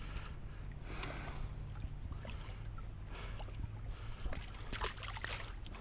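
Small waves lapping against a fishing boat's hull in a light chop, over a low steady hum, with scattered light knocks and clicks.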